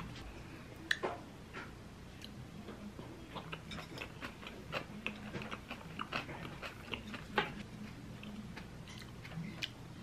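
Close-up chewing of a rice bowl with kimchi and egg: soft mouth sounds with many small, irregular clicks and crunches, a few sharper ones about a second in and again past the middle.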